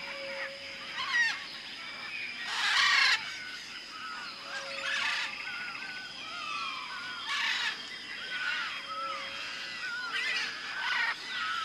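Tropical rainforest ambience: many birds calling over a steady high insect drone, with loud harsh squawks about two and a half seconds in and again past the middle, and a short low hoot that recurs every four or five seconds.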